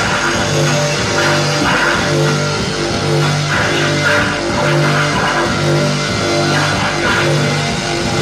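Rock band playing live: distorted electric guitar and bass repeating a short low riff over a drum kit.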